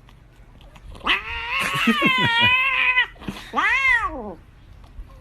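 A cat yowling twice: a long, wavering call, then a shorter meow that rises and falls.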